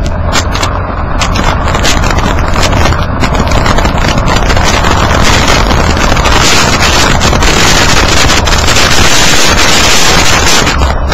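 Loud rushing tyre and road noise with wind buffeting, heard from a microphone under a Nissan Kix just behind a tyre while it drives on a dirt track. Many small rapid ticks and knocks run through it, and it grows louder about two seconds in.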